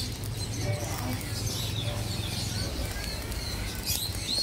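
Scattered chirps of small birds over a steady low hum.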